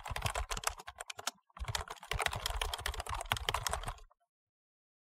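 Rapid computer-keyboard typing sound effect, a fast run of key clicks with a short pause just over a second in, stopping about four seconds in.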